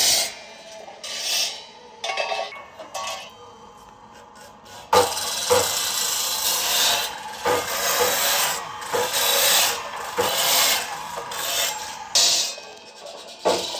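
Irregular rasping, scraping strokes of a tool working a surface, with a few sharp knocks.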